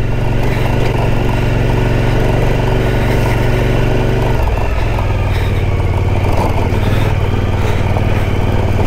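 Adventure motorcycle engine running steadily at low speed over a rocky dirt track, its note changing briefly about four and a half seconds in.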